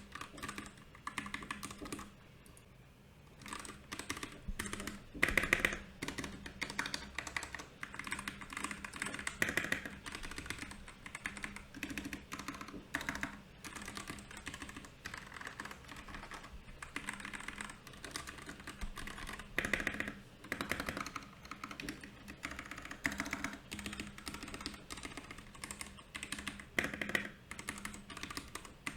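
Typing on a Royal Kludge RK68 mechanical keyboard: a fast run of key clicks, pausing briefly about two seconds in, with a few louder clusters of strokes along the way.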